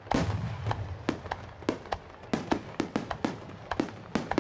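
Starmine fireworks barrage: a loud boom at the start, then a rapid run of sharp aerial shell bursts, about three to four a second.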